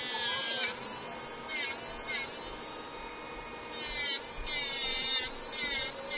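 Electric nail drill (e-file) running with a steady whine as its bit grinds on the nails in repeated short passes, the pitch dropping each time the bit bites into the nail.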